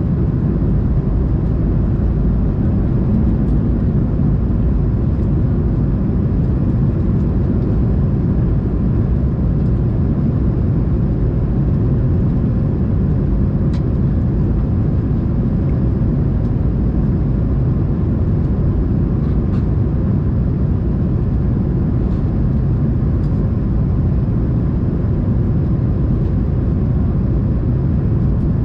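Steady cabin noise of an Airbus A220-300 on approach with flaps extended, heard from a window seat over the wing: a deep, even rush of airflow and Pratt & Whitney PW1500G geared-turbofan engines, with a faint steady high tone above it.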